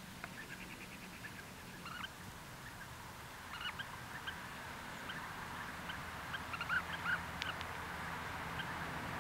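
European bee-eaters calling: short call notes scattered in little groups of two or three, the loudest about seven seconds in, over a steady hiss that grows louder toward the end.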